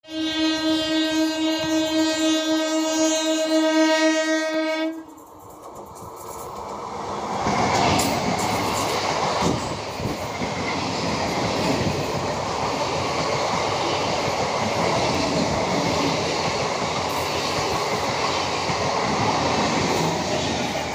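A train horn sounds one steady note for about five seconds and cuts off sharply. Then an Indian Railways electric multiple unit (EMU) local train passes close by, its running noise building over a couple of seconds and then holding steady.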